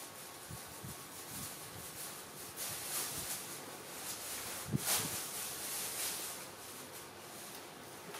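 Scuffling and rustling of a baby monkey in a diaper wrestling with a puppy on a concrete floor, with scattered light knocks and one sharper knock about five seconds in.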